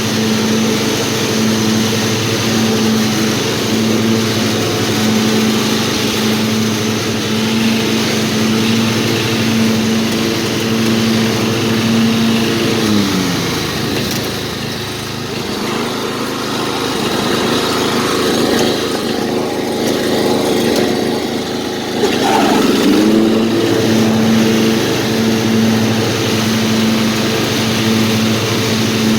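Old riding lawnmower's small engine running at a steady speed. About 13 seconds in it slows and drops in pitch, runs low and uneven for several seconds, then picks back up to its steady speed at about 22 seconds.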